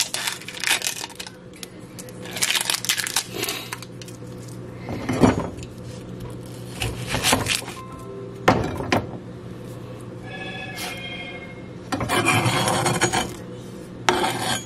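Dry onion skin crackling as a white onion is peeled by hand, then a large cleaver-style knife cutting through the onion and knocking on the cutting board in several separate strokes. A low steady hum runs underneath.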